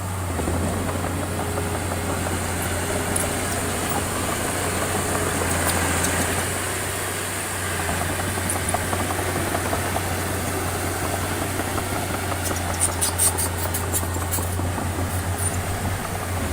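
Diesel engine of heavy construction machinery running steadily with a low drone, and a cluster of sharp clicks about thirteen seconds in.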